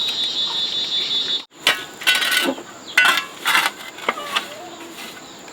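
A steady, high insect drone, like cicadas, cuts off suddenly about a second and a half in. It is followed by several sharp clinks and clatters.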